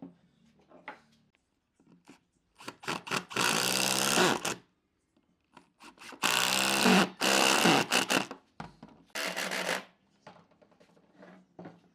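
A hand tool working wood in three long scraping strokes, each one to two seconds long, with quiet gaps between them.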